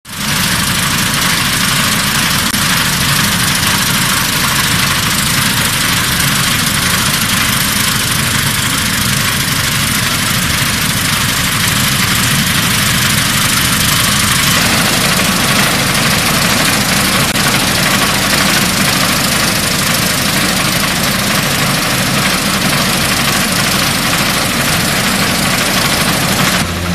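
Massey Ferguson 385 tractor's diesel engine running steadily under load, driving a mounted wheat reaper and threshing chopper, with a dense steady rushing noise from the cutting and threshing machinery. The noise grows fuller about halfway through.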